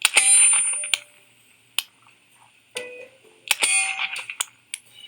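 Glock 19X pistol fired several times at irregular intervals of about a second, each shot a sharp crack followed by a metallic ring; the first shot is the loudest.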